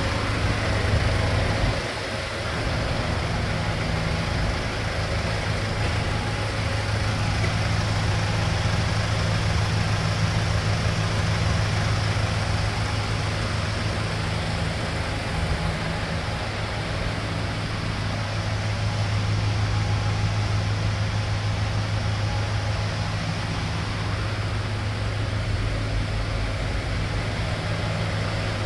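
Hyundai Starex van's engine idling steadily with a low hum, dipping briefly about two seconds in.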